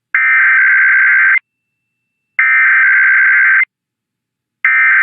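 Emergency Alert System SAME header: three identical bursts of buzzy two-tone digital data, each a little over a second long and about a second apart. This is the coded header that opens an alert, here a required weekly test.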